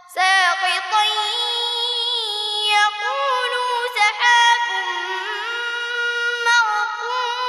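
A young boy reciting the Quran in Arabic in a melodic tajweed chant, in a high voice, drawing out long held notes with ornamented turns and pausing briefly for breath a few times.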